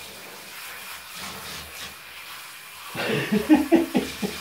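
Handheld shower head spraying water onto a wet cat in a bathtub, rinsing its fur: a steady hiss. About three seconds in, a person's voice starts talking over it, louder than the water.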